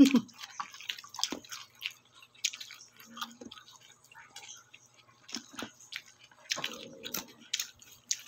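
A person chewing food close to the microphone, with irregular short mouth clicks and smacks. The meal is lechon eaten with lettuce and cucumber. One louder mouth sound comes right at the start.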